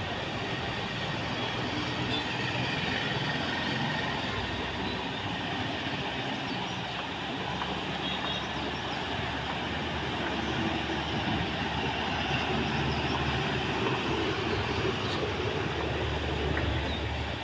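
Steady heavy rumble of passing vehicles, its deep low part growing stronger about four seconds in and again near the end.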